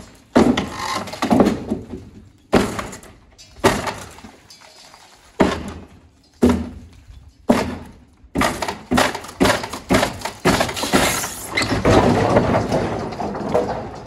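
Heavy blows striking a concrete overhang on a building under construction, roughly one a second, coming quicker after about eight seconds. From about ten seconds the slab breaks away and crashes down with rubble and timber props for some three seconds.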